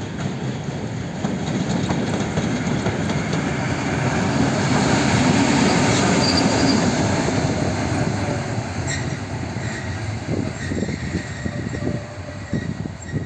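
ST44 (M62-type) diesel locomotive moving past, its two-stroke V12 diesel running and its wheels rolling on the track. The noise grows louder to a peak about halfway through and then eases off, with a brief high wheel squeal near the peak.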